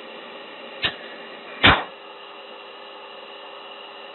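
Steady hiss and hum of an F-16's cockpit intercom during a high-G pull into the vertical. Two short, sharp breaths hit the oxygen-mask microphone about one and nearly two seconds in, the second louder: breathing while straining against the G.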